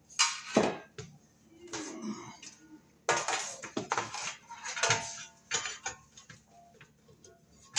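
Sheet-metal breaker panel cover and its hinged door being handled and fitted over the box: a series of metallic clanks, rattles and scrapes, with the longest rattle about halfway through.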